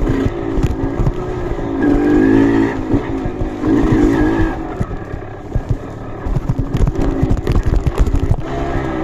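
Off-road trail motorcycle engine revving in repeated swells, its pitch rising and falling, over many short knocks and thumps.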